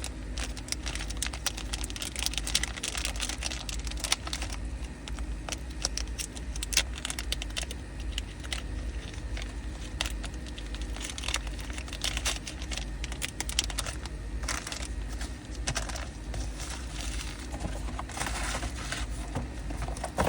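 Packaging being handled and opened: an irregular run of crinkling and small sharp clicks, over a steady low hum.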